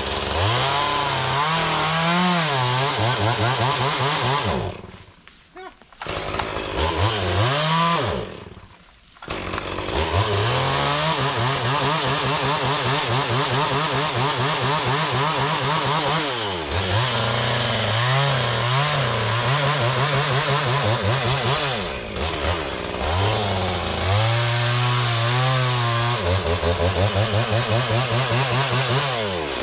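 Two-stroke chainsaw running at high revs while cutting wood, its pitch wavering and sweeping up and down. It drops away twice briefly in the first ten seconds, then runs on almost without a break.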